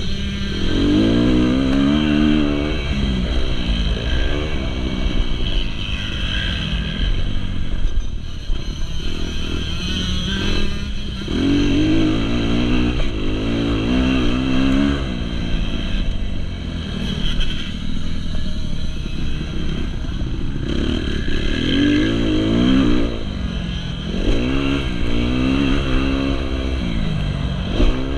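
2019 Kawasaki KX250's single-cylinder four-stroke engine under hard acceleration on a motocross track. Its pitch climbs through the revs and drops back several times as it shifts and rolls off.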